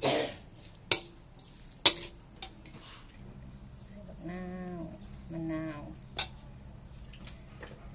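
Metal spoon clinking and scraping against an aluminium wok as minced pork and offal are stirred: a few sharp clinks in the first couple of seconds and one more later. Two drawn-out calls, each under a second, sound in the background in the middle.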